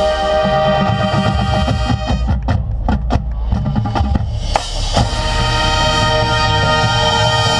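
Loud music with drums and held chords. There are several sharp drum hits between about two and five seconds in.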